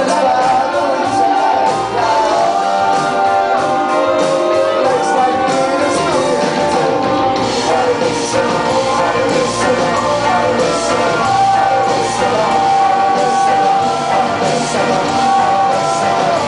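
A rock band playing live: electric bass, acoustic and electric guitars and drums, with vocals sung over a steady beat.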